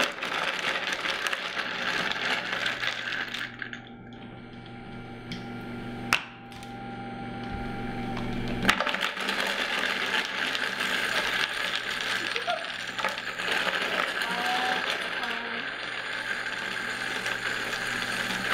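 High-speed blender running, blending soaked macadamia nuts into water as more nuts are added to the jar. It drops off for a few seconds, a sharp knock sounds about six seconds in and another about nine seconds in, after which it runs steadily.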